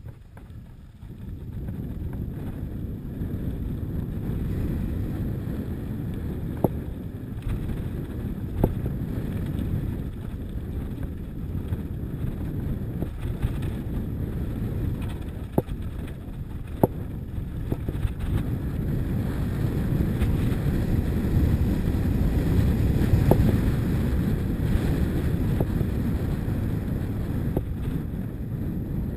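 Wind buffeting an action camera's microphone and tyres rumbling over a rough dirt track while riding downhill at speed. It grows louder about a second in, with a few sharp clicks along the way.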